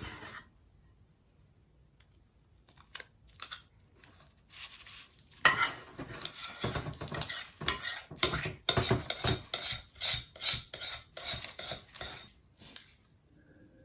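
Spoons scraping and clinking as thick cupcake batter is added to and spread in a cupcake tin. A few light taps come first, then a busy run of scraping and clinking from about halfway through.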